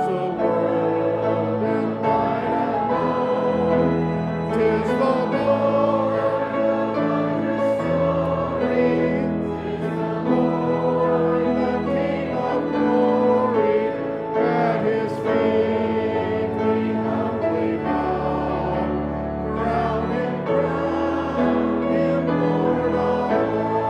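Congregation singing a hymn together with instrumental accompaniment, in sustained chords over a held bass.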